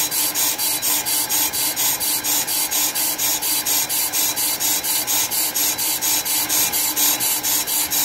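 Pro-Cut PFM 9.2 on-car brake lathe cutting a brake rotor: the cutting bits scrape the spinning rotor with an even pulse about five times a second over the lathe's steady hum. The pulsing is the cut catching and missing from turn to turn, which sounds inconsistent: the bits hit a high spot and miss a low spot on the rotor.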